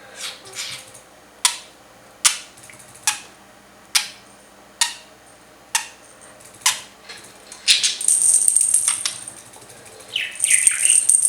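Sharp taps with a short ring, about one a second, then a couple of seconds of dense rattling and a few short high budgie chirps near the end.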